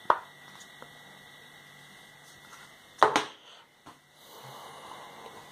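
Quiet room tone broken by two short knocks about three seconds apart, the second and louder one as the blender's plastic blade base is set down on the kitchen worktop.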